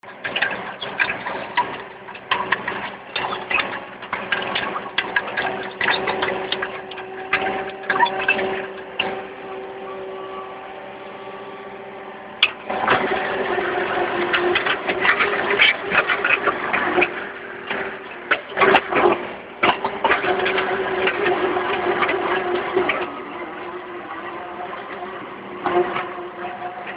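Skid steer loader's engine running under load while its hydraulic auger bores into the ground, a steady hum with frequent clatter and knocks over it. Near the middle it settles to a quieter, steadier run for a couple of seconds, then picks up again.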